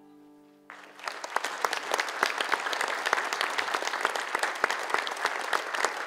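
The last chord of an acoustic guitar and cello fades out. Under a second in, an audience breaks into dense, steady applause.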